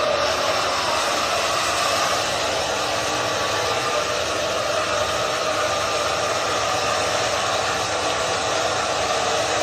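Handheld electric hair dryer running steadily, a constant rushing whir with a faint hum in it.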